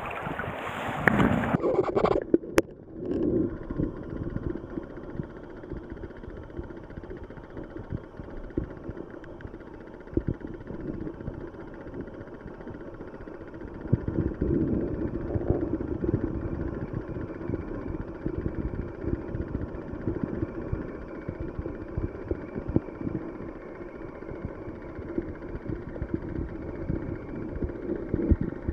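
River water rushing and splashing in the open air, then, about two and a half seconds in, the sound goes muffled as it is heard from under the surface: a low, steady rushing of the stream current with scattered faint ticks and knocks.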